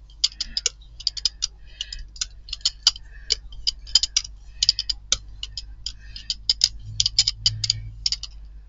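Rubber brayer rolled back and forth over tacky acrylic paint on a gel printing plate, spreading it out: a fast, uneven run of sharp sticky clicks and crackles.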